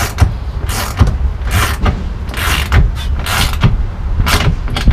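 A hand tool working bolts on the underside of an enclosed trailer's floor: short mechanical ratcheting strokes, about one a second, over a steady low rumble.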